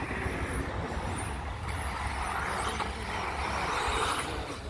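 Electric 1/10 RC buggies, Team Associated B6.2s among them, racing on an artificial-grass track: the whine of their motors and drivetrains swells as cars pass, loudest about four seconds in, over a low rumble.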